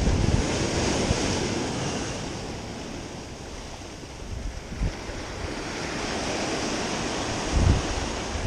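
Ocean surf breaking and washing over jetty rocks, swelling and easing. Wind buffets the microphone in a few low thumps, the strongest near the end.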